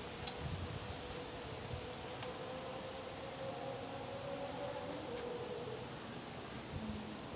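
Steady high-pitched insect buzz, with a few faint clicks and soft knocks as the metal parts of a teleprompter are handled.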